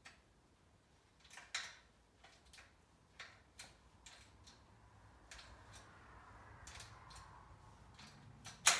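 Scattered light clicks and ticks of hand tools and metal parts being handled on the steel frame of a rolling table saw stand, at irregular spacing, with a faint rubbing for a couple of seconds past the middle and one sharper, louder click near the end.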